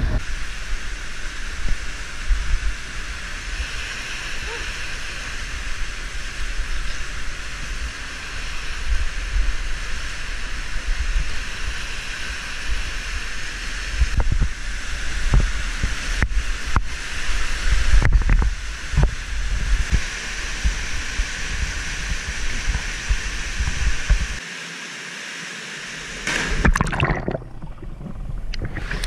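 Waterfall rushing steadily into a canyon pool, close to the camera, with low rumbles and a few sharp knocks from the climber's gear and camera during the rappel. Near the end the rushing turns dull and gurgling as the camera goes into the churning water.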